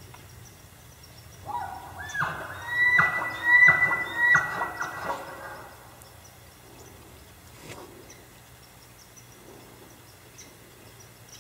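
Elk calling: a call that glides up to a high note about two seconds in, followed by three short, high, repeated notes, each with a deep grunt beneath. The calling stops about five seconds in.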